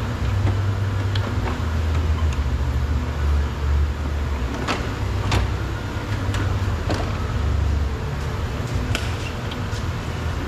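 Scattered sharp clicks and knocks of the car's headlight assembly and front-end trim being handled and worked loose by hand, over a steady low hum.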